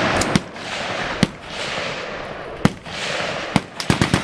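Gunfire on a machine-gun range: scattered sharp single shots and a quick burst of four near the end, over a continuous wash of noise.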